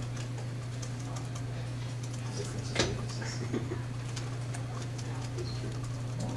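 Laptop keyboard typing: quick, irregular key clicks, with one sharper tap about three seconds in, over a steady low hum.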